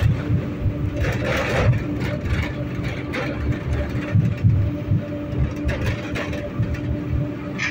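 A 71-911E City Star tram running along the track: a steady low rumble with irregular thumps from the wheels and rails, under a steady electric hum. About one and a half seconds in comes a short rush of higher, hissing noise.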